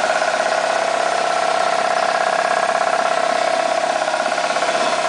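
Ingersoll Rand 60-gallon vertical air compressor running steadily: its 230-volt single-phase electric motor driving the piston pump with a steady drone and a fast, even pulsing.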